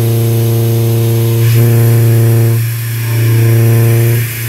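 Half-inch Kennametal HARVI I TE end mill in a CNC mill rest-roughing a pocket in 316L stainless steel at 1719 rpm: a loud, steady cutting hum. The hum falters briefly a little past halfway and again near the end as the cut changes.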